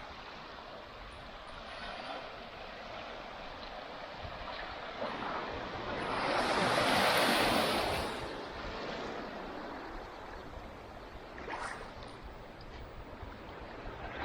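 Waves washing onto a sandy beach as a steady hiss, with one wave breaking louder about halfway through, swelling and fading over two seconds.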